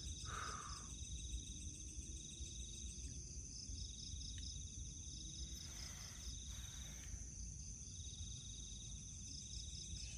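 Night-time crickets trilling steadily in a high, pulsing chorus over a low background rumble, with a couple of soft rustles, one right at the start and one about six seconds in.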